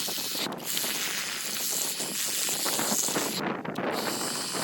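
Ryobi EZ Clean cordless pressure washer spraying water onto a muddy mountain bike at its second pressure setting: a steady hiss of spray. It breaks off briefly about half a second in, and again for a moment just after three seconds.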